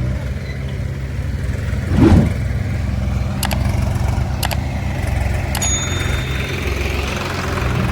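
Diesel engine of a backhoe loader or tractor running steadily with a low drone. About two seconds in there is one loud short sound, followed by a few sharp clicks and a brief high steady tone around six seconds in.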